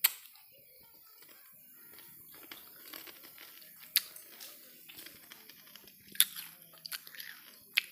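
Fingers picking apart a buras rice cake on its banana-leaf wrapper: rustling and crinkling handling noise with a few sharp clicks.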